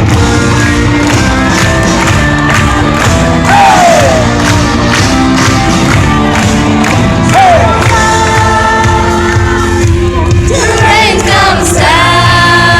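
Live, loud praise music: a band with held, wavering sung notes, and a crowd's voices mixed in.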